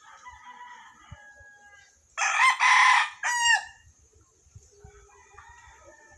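White bantam rooster crowing once, about two seconds in: a loud crow of about a second and a half, broken into parts and ending on a falling note.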